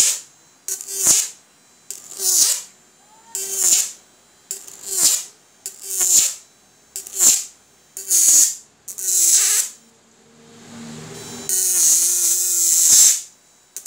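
High-voltage arc from a homemade analog (transistor inverter) electric fishing machine stepping 12 V up to about 1200 V. About nine short crackling, buzzing arcs come roughly one a second, each with a tone under the hiss that bends in pitch. Near the end, after a quieter hiss, comes one longer arc.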